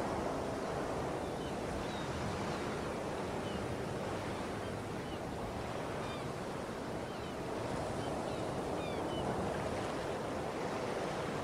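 Ambient recording of ocean waves on a shore: a steady rushing wash that swells and eases a little, with faint short high chirps scattered through it.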